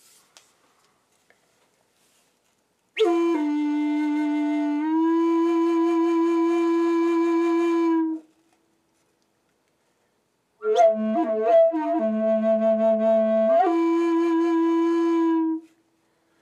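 Wooden end-blown flute in the key of A played slowly: a first phrase of long held notes, a pause, then a second phrase that opens with a few quick grace notes, drops to a low note and rises again to a long held note.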